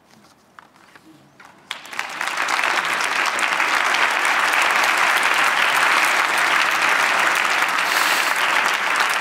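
Audience applause in a large hall. A few scattered claps come first, then the whole audience joins in about two seconds in and keeps clapping steadily.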